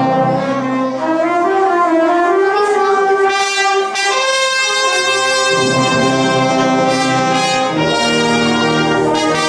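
A brass band of trumpets, trombone and tuba playing an overture. The low bass parts drop out about a second in, leaving the upper brass carrying the melody, and come back in about halfway through.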